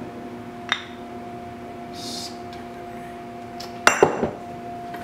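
Glass bottles and jars on a pantry shelf clinking and knocking as they are moved around: one sharp click just under a second in and a louder clatter of several knocks near four seconds, over a steady low hum.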